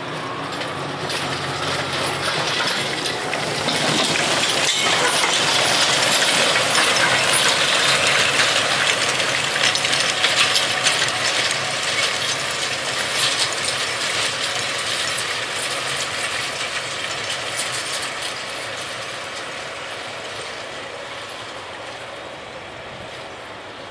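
A tractor pulling a 50-foot McFarlane harrow passes by, the engine and the harrow's metal parts running together as a rattling mechanical noise. It grows louder to a peak about six to ten seconds in, then slowly fades away.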